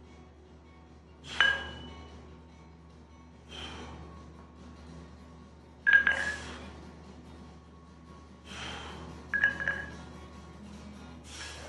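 Chrome dumbbells clinking together with a short metallic ring at the top of chest-fly reps, three times, the last a quick double rattle. Each rep comes with a sharp breath out, about every two to three seconds.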